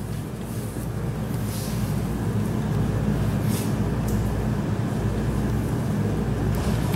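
A steady low hum, with a few faint swishes of a damp cloth being wiped over the oven's stainless steel floor in the first few seconds.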